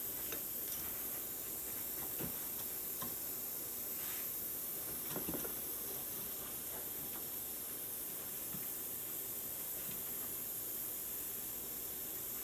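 A steady hiss, with a few faint clicks and taps as small parts are handled and set up on the workbench.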